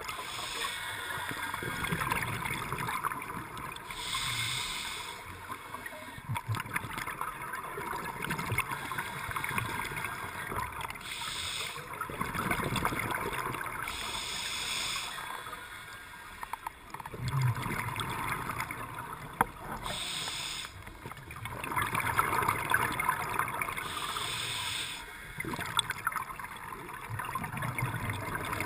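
Scuba diver breathing underwater through a regulator: about four breaths, each a hiss on the inhale followed by a rush of bubbling, gurgling exhaust.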